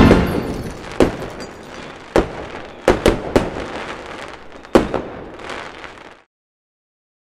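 Fireworks sound effect: a loud burst at the start, then several sharp bangs with crackling between them, dying away about six seconds in.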